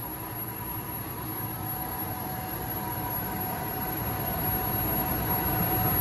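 A 50 hp Ingersoll Rand air compressor running in its enclosed cabinet: a steady machine hum with a few held whining tones, growing steadily louder.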